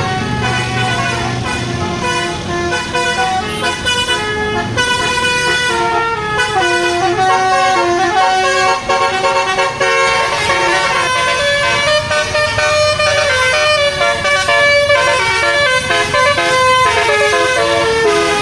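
Tour bus basuri musical air horn playing a melody of stepped, held notes that move up and down in pitch, with the bus's engine running low underneath.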